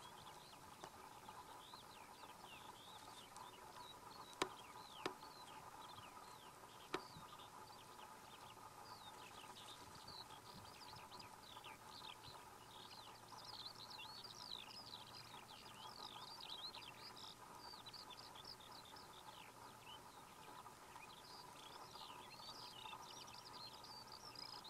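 Faint, continuous chirping of small songbirds, many short quick calls overlapping, busier in the second half. Three sharp clicks stand out a few seconds in.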